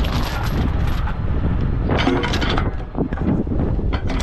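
Steel tow chain clinking and rattling against metal as it is handled, in three bunches of clanks: at the start, about two seconds in, and at the end. A steady low rumble runs underneath.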